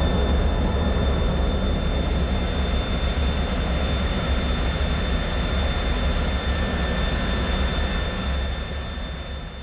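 Lockheed T-33's turbojet engine running on the ground: a steady low rumble with a thin high whine over it, fading away near the end.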